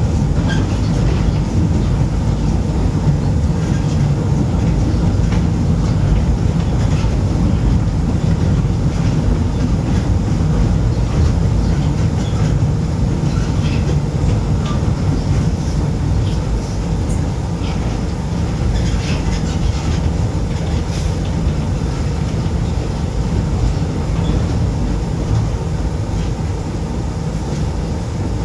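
Moscow monorail train heard from inside the car as it runs along the elevated beam: the steady low rumble of its rubber-tyred running gear, with faint scattered ticks, getting a little quieter near the end.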